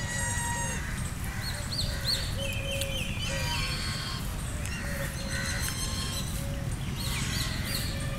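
Birds calling: a short, low call repeating about twice a second, with higher chirps and whistles over it and a steady low rumble underneath.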